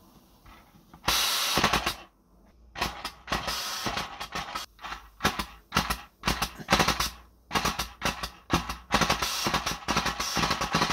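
Compressed air hisses briefly about a second in as the supply valve opens. Then the 3D-printed opposed-piston compressed-air engine, spun by hand at its flywheel, puffs and clatters in quick irregular bursts of exhaust air and mechanical clicks, coming thicker near the end.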